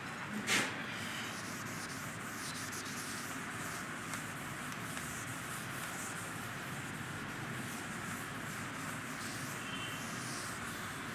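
Chalkboard duster wiping across a blackboard in repeated soft strokes over a steady faint hiss, with a sharp knock about half a second in.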